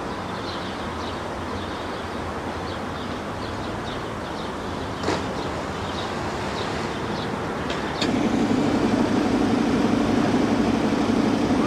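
Steady traffic noise, with one short sharp splash-like hit about five seconds in. About eight seconds in it steps up to louder, steady noise of a city bus and a train running close by.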